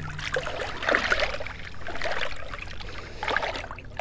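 Water splashing and sloshing as a large redfish is held at the surface by hand and moved about, in irregular splashes, loudest about a second in.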